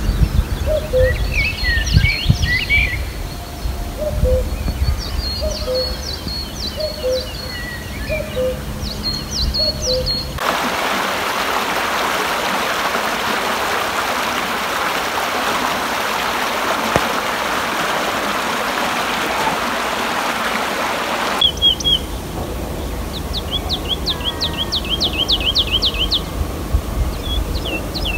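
Wild birds singing in open countryside: series of high chirps and a low note repeated about once a second, over a low rumble. From about 10 s to 21 s this gives way to the steady rushing of water in a small grassy brook, which starts and stops abruptly. Then the birdsong resumes with rapid runs of high chirps.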